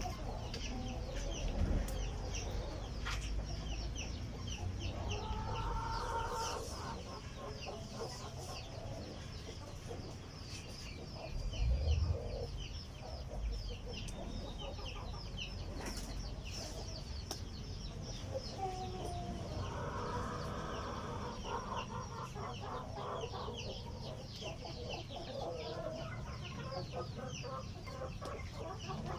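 Village chickens clucking on and off over a continuous chorus of high, quick chirps, with a single low bump about twelve seconds in.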